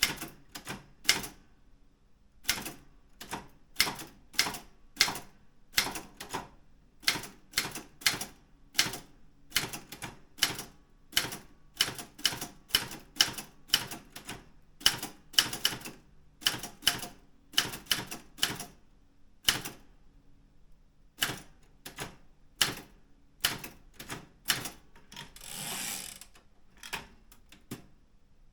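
Daro Optima M16 manual typewriter being typed on, with keys striking at about two to three a second and a couple of brief pauses. Near the end there is a second-long sliding noise, likely the carriage being returned.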